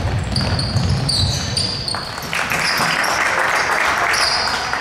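Basketball being played on a hardwood court in a large sports hall: short squeaks of sneakers on the floor and the thud of a dribbled ball. A louder stretch of hissing noise runs for about two seconds midway.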